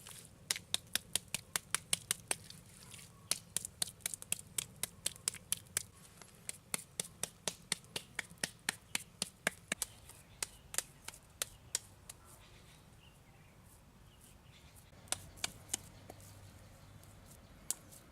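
A fast run of sharp clicks or taps, about four a second, that stops about twelve seconds in, followed by a few scattered ones.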